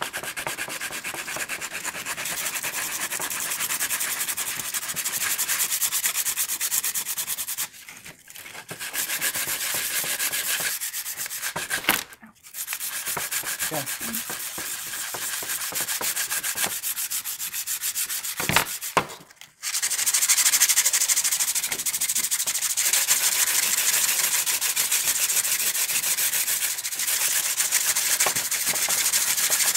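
Wooden lantern parts being hand-sanded with sandpaper: a steady scratchy hiss of rapid back-and-forth rubbing strokes, stopping briefly a few times.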